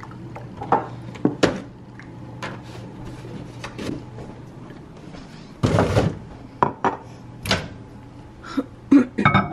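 Kitchen handling noises: scattered knocks and clicks of containers and dishes being set down and moved on a counter, with a louder noisy burst about six seconds in. A steady low hum runs underneath.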